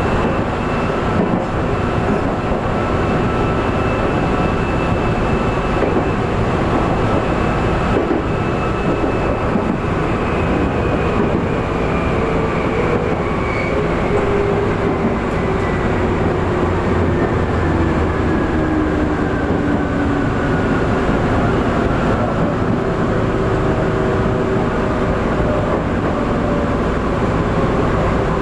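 Tokyu 8500 series electric train running, its loud traction-motor and running noise heard from the front car, with motor whine tones that fall in pitch from about ten seconds in.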